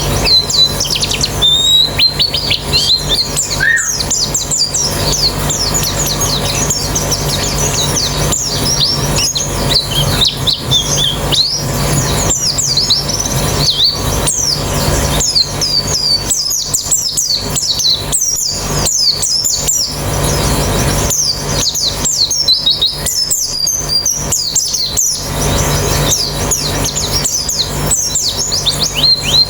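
A chorus of many white-eyes singing at once: fast, high-pitched, overlapping twittering songs without a break, over a steady low hum.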